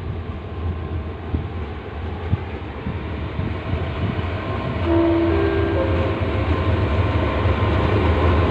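Diesel locomotive 4507 hauling a passenger train drawing into a station: a steady low engine drone that grows louder as it approaches and passes close. A few short whining tones, stepping up in pitch, come in about five seconds in.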